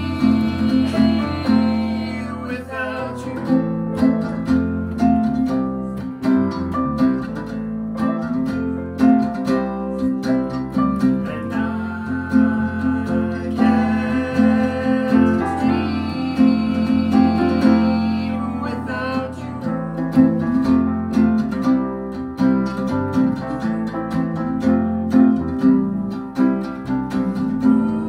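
Live band playing a song: a woman singing lead with a man singing along, over strummed acoustic guitar, electric bass and keyboard.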